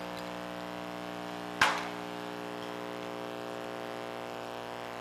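Steady electrical hum made of many steady tones, with a single sharp click about one and a half seconds in.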